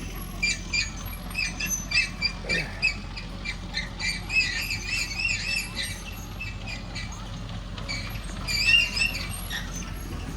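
Small birds chirping, many short high calls repeating through, busiest in the middle and again near the end, over a steady low hum.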